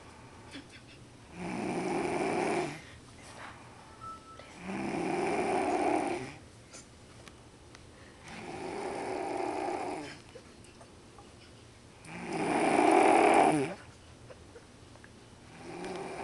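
A person snoring in slow, regular breaths: a snore about every three and a half seconds, each lasting over a second, with quiet gaps between. The fourth snore is the loudest, and another begins near the end.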